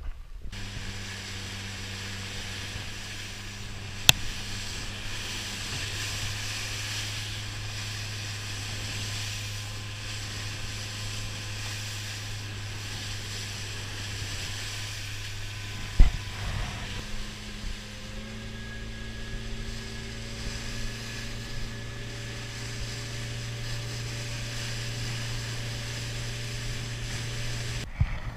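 A fishing boat's engine running with a steady low hum, under a hiss of wind and sea. There is a sharp knock about four seconds in and a louder one about sixteen seconds in, and the engine's note shifts slightly after the second knock.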